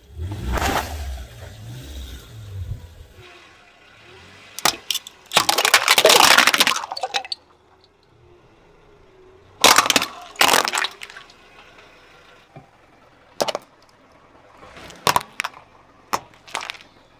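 A car tyre rolling over and crushing plastic bottles and tubes, several separate bursts of cracking and crunching plastic, the longest and loudest a few seconds in and another about ten seconds in. The car's low rumble runs under the first few seconds.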